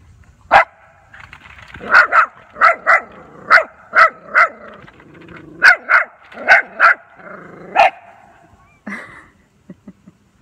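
A puppy barking in short, high-pitched yaps, about a dozen in all and often in quick pairs, which stop about 8 seconds in.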